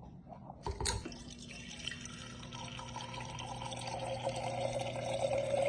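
A click about a second in, then water running steadily into a container with a low steady hum under it, growing a little louder near the end.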